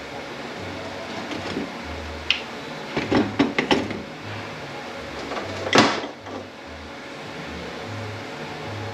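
Metal parts of a Ford 10R80 automatic transmission being handled during teardown: scattered clicks and clinks, a cluster of them about three to four seconds in, and one louder clunk just before six seconds in. A steady low hum runs underneath.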